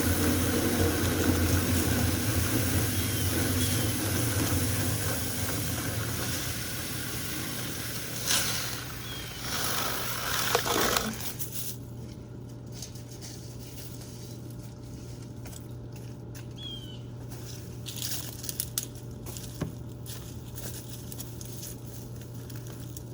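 Steady rushing and whirring of dryer vent cleaning, a running dryer pushing air through the duct while a brush is worked through it, over a low hum. The rushing cuts off sharply about eleven seconds in, leaving the low hum and a few light clicks.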